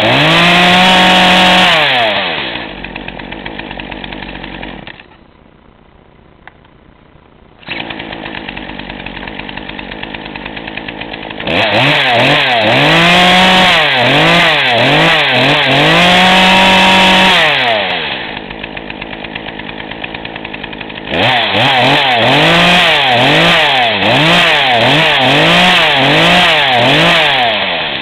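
Poulan Pro 42cc two-stroke chainsaw running unloaded: a brief rev, then idling, with the sound dropping away sharply for about three seconds before the idle returns. It is then revved in a string of throttle blips with one long hold at high revs, settles back to idle, and near the end is blipped rapidly about ten times before returning to idle.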